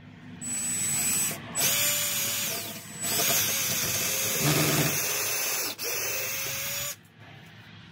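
Cordless drill boring a hole up through wooden roof boards from below, marking where the exhaust vent will go through the roof, until the bit breaks through to daylight. It runs with a steady whine in four spurts, with brief pauses between them.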